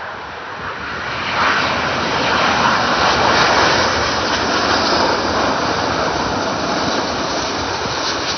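Airbus A350 airliner's Rolls-Royce Trent XWB turbofans running at approach power as it passes low overhead on final approach with gear down. The jet noise swells about a second in and stays loud, easing slightly near the end.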